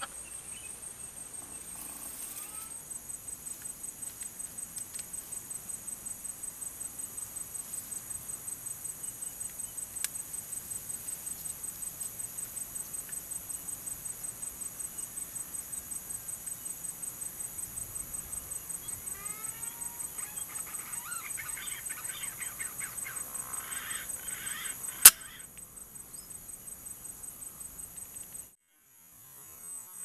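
Insects (cicadas) droning high-pitched with an even, rapid pulse, some rising bird whistles near the end, and a single sharp crack about twenty-five seconds in: a shot from a PCP air rifle at green pigeons.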